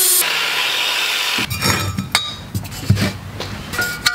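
Angle grinder's cut-off wheel cutting through a steel exhaust resonator pipe, a steady hiss that stops about a second and a half in as the cut is finished. After that come irregular metal knocks and clinks as the cut pipe is handled in the vise.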